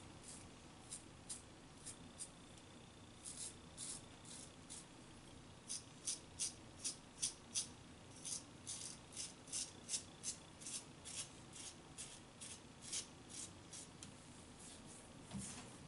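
Straight razor scraping through beard stubble under the nose and on the chin: a run of short, crisp rasping strokes, about two or three a second, loudest in the middle.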